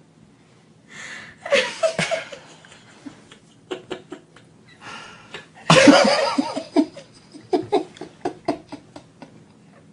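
A person laughing: a short burst about a second and a half in, then a loud outburst about six seconds in that breaks into a string of short chuckles.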